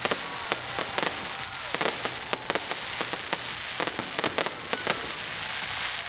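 Fireworks going off: a dense, irregular run of sharp pops and bangs over a steady crackling hiss.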